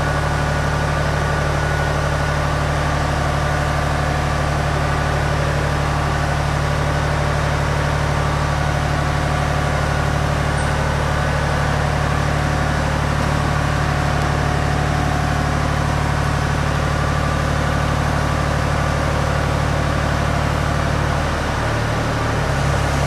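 Aerial boom lift's power unit running with a steady low hum. Its tone changes near the end.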